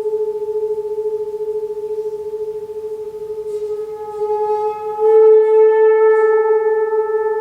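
A single sustained musical tone held at one steady pitch. About four seconds in, a row of higher overtones comes in, and the tone turns brighter and louder, with no new strike.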